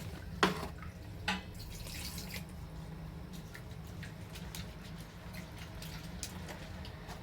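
Two sharp clinks of a spoon against a glass, then faint light ticking and dripping, as a spoonful of ground flaxseed goes into a glass of warm milk.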